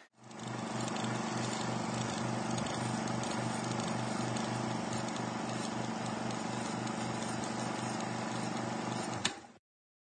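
Outro music bed: a steady drone with an even low pulse about three or four times a second, ending with a click and a sudden cut shortly before the end.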